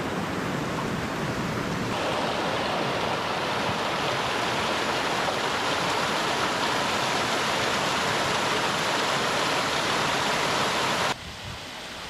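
Creek water rushing steadily over rocks in small cascades. It grows louder about two seconds in and drops off suddenly near the end.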